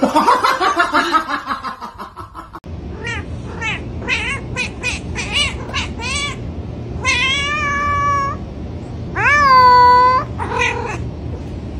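A loud sound falling in pitch in the first two seconds, then a tabby cat meowing over and over: a quick run of short meows, then two long drawn-out meows near the end, the second the loudest.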